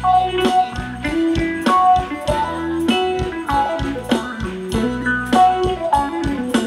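Thai ramwong dance music playing over loudspeakers: a plucked-string, guitar-like melody over a steady drum beat.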